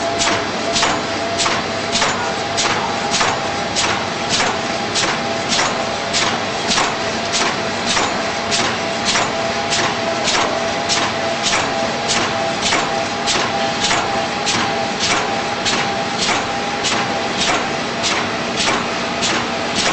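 Automatic four-colour container screen printer running: an even rhythm of sharp clacks, a little under two a second, over a steady machine hum.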